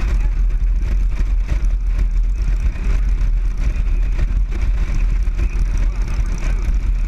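Motorcycle running at a steady cruising speed, its engine heard together with wind and road rumble.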